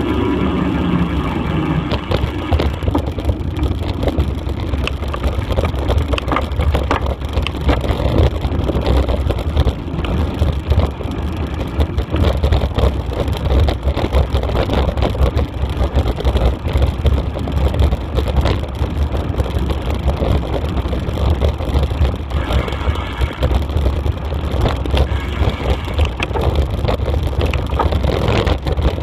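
Steady low rumble of a moving vehicle, wind buffeting the microphone and tyres running over rough ground, with a dense crackle from the surface of a dirt track.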